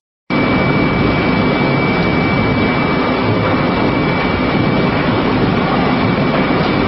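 Industrial shredder running empty, its cutter shafts turning: a loud, steady mechanical din with a constant high-pitched whine over it. It cuts in abruptly just after the start.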